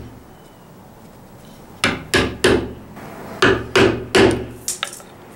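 A chisel struck with a hammer, chopping into red oak to cut a slot for a spline through a crack. Two groups of three sharp blows, then two light taps near the end.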